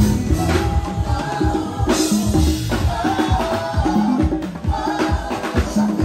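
Live band playing an upbeat praise groove: a five-string Fender electric bass plays repeated low notes under congas and a drum kit, with shaker-like percussion.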